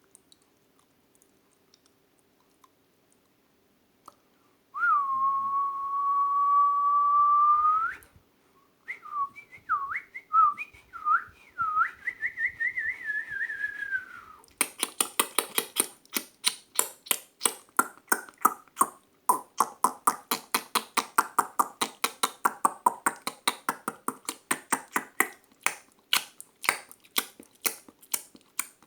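Mouth whistling imitating birdsong: one held steady note, then a warbling, trilled whistle. After that comes a long run of sharp mouth clicks, about four a second.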